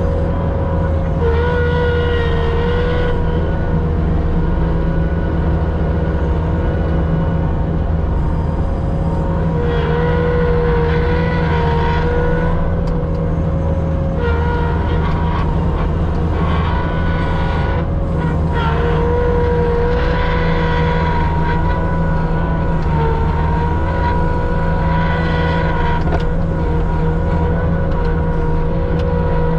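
A machine running steadily: a low engine-like hum with a higher whine that wavers slightly in pitch.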